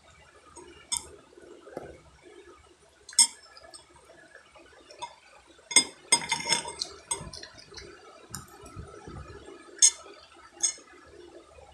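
Scattered sharp clinks of cutlery and dishes while eating: single clicks about one, three and ten seconds in, and a busier clatter about six to seven seconds in.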